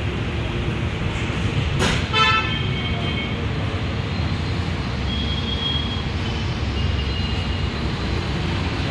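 Steady road-traffic rumble with a vehicle horn honking for about a second, two seconds in, just after a short knock. Fainter high-pitched horn toots follow later.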